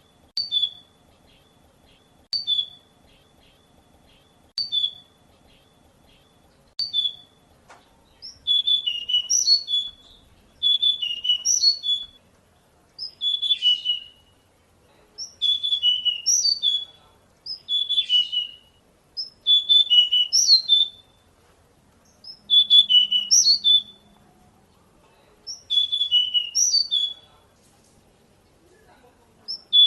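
Pied bushchat (decu) singing: a few short single whistled notes about two seconds apart, then from about eight seconds in, a string of brisk, high twittering song phrases, each about two seconds long with short pauses between.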